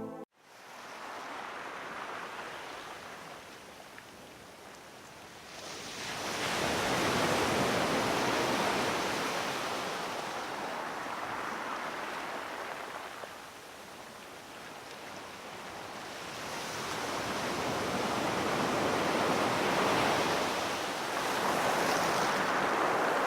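Sea surf: waves breaking and washing on the shore, swelling and fading slowly, loudest about a third of the way in and again toward the end.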